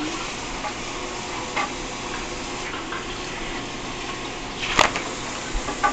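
Plastic soda bottle caps batted about by a cat on a hard floor and rug: a few light clicks and one sharp click near the end. Under them runs a steady rushing noise.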